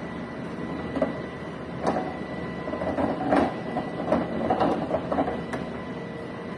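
Hands working on an espresso machine: a string of irregular clicks and knocks as parts are handled, over a steady thin high tone.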